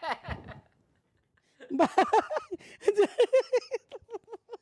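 A woman laughing hard. A trailing laugh dies away, and after about a second of silence comes a long run of quick, rhythmic laughing pulses.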